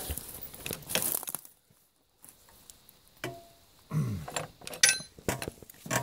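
Scattered light metal clicks and clinks as a reusable hydraulic hose fitting and tools are handled, with a brief lull about a second and a half in.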